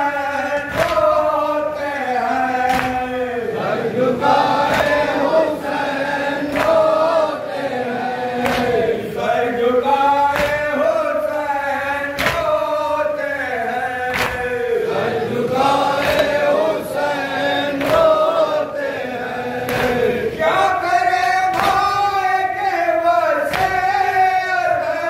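Group of men chanting a noha, a Shia lament, in unison, the melody rising and falling in long phrases, over a regular beat of sharp slaps from chest-beating (matam).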